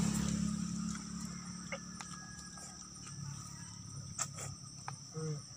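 Steady high-pitched insect chorus. A low hum fades out in the first second, and there are a few faint clicks and a short low voiced sound near the end.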